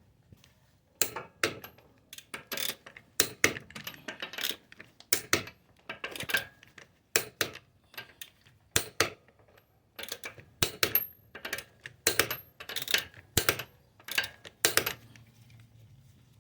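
Hand tools and metal parts clinking while a new front lower control arm is fitted: irregular sharp metallic clinks, often two in quick succession, about twenty in all.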